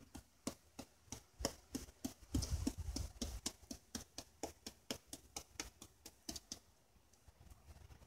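Kitchen knife chopping repeatedly into a hand-held overripe papaya, scoring it into strips: a run of quick, uneven chops, about three or four a second, that stops about six and a half seconds in.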